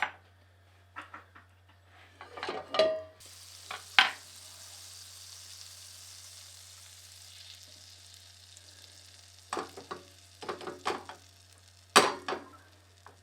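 Pancake batter hitting a hot buttered non-stick frying pan and sizzling, the hiss starting about three seconds in and dying away over several seconds. Sharp clinks and knocks of a ladle against the bowl and pan come before the sizzle and again near the end.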